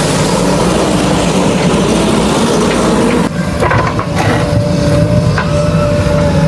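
Heavy construction machine's diesel engine running steadily. About three seconds in the sound changes abruptly, followed by a few short squeaks and knocks over the engine, then a steady whine.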